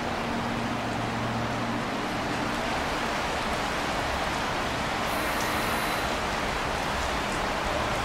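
Steady outdoor background noise, an even wash like distant traffic or running water. A low engine hum runs through the first two seconds and then fades into it.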